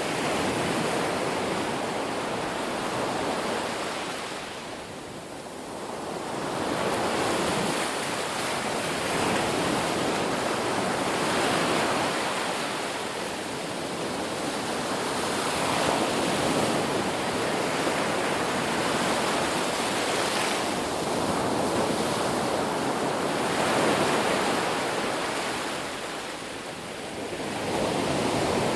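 Ocean surf: waves breaking and washing in, a continuous rush that swells and eases every few seconds. It dips briefly about five seconds in and again near the end.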